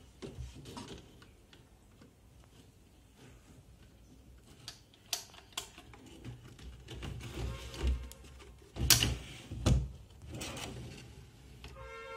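Wooden drawer being slid back onto ball-bearing telescopic channel slides: scattered metallic clicks and rattles as the rails are lined up and engaged, a rolling slide, then two loud clacks as the drawer is pushed home.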